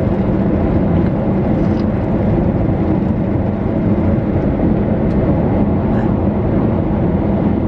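Steady low rumble of a car's engine and road noise heard inside the cabin.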